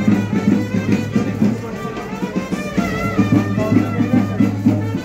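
Music: a steady low drone under a regular drum beat, with a wavering melody line above.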